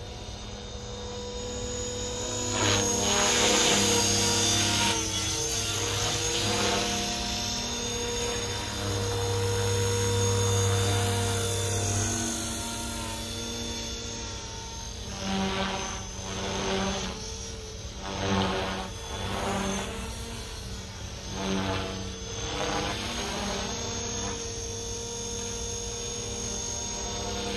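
Helicopter flying overhead, its steady rotor and engine sound shifting as it moves. From about halfway it swells and fades in repeated pulses every second or two as it manoeuvres.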